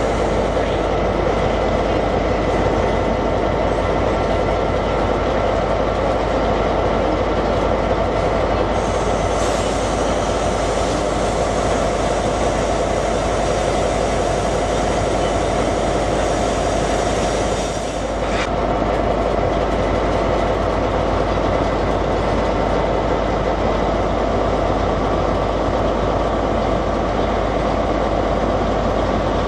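Diesel engines of a Class 67 locomotive and a Class 43 HST power car idling together, a loud, steady drone.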